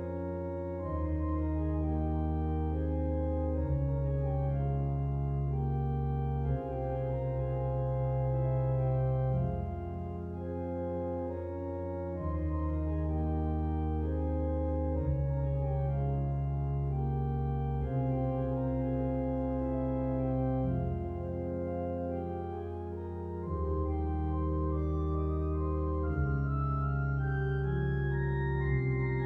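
Two-manual home organ console with pipe-organ stops shown on a touchscreen, playing a slow piece in sustained chords, the bass note moving every two or three seconds.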